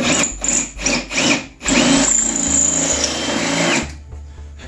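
Power drill enlarging a misaligned rivet hole in a snowmobile's tunnel roll: a few short bursts, then one steady run of about two seconds with a whine, stopping about a second before the end.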